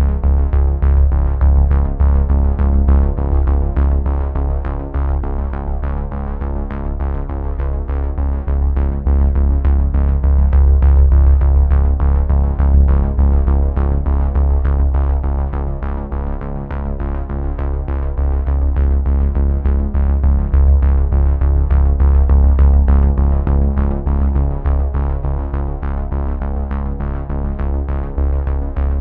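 Background electronic music with a synthesizer and a steady beat.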